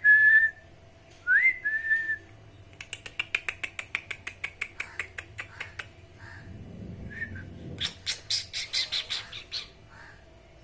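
Pet parrot giving two whistles that rise and then hold, then a fast run of harsh clicking squawks, about eight a second, and another rasping squawk burst near the end.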